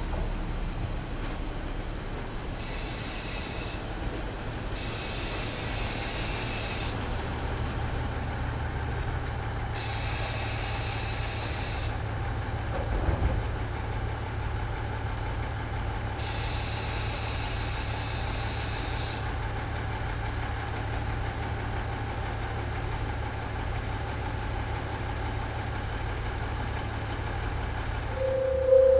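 KiHa 40-series diesel railcar standing at the platform, its diesel engine idling with a steady low rumble; a high-pitched trill comes and goes four times and there is one short knock about halfway through. Just before the end a loud bell-like warning tone starts, pulsing about twice a second.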